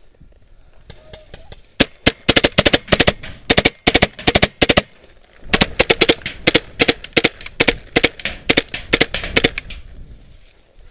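Paintball marker firing in two rapid strings of sharp pops, about five shots a second, the first starting about two seconds in and the second a little after halfway, stopping near the end.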